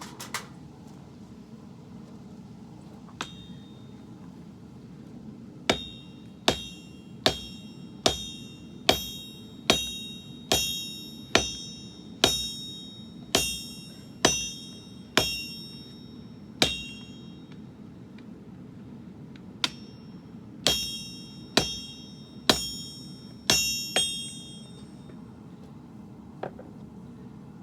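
Hand hammer striking a sword blade on an anvil, each blow ringing with a bright metallic tone. About fourteen evenly spaced blows come roughly one a second, then a short pause, then about six more.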